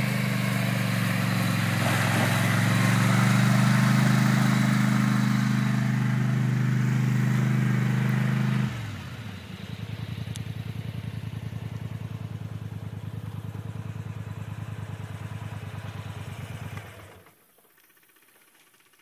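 Polaris Sportsman XP 850 ATV's parallel-twin four-stroke engine running hard as the quad churns through shallow river water, with the hiss of spray. About nine seconds in it drops abruptly to a quieter, steady low putter, which stops a couple of seconds before the end.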